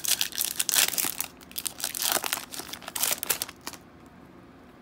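Wrapper of a football trading-card pack crinkling and tearing as it is ripped open by hand and the cards are pulled out, in a run of dense crackles that stops a little before the end.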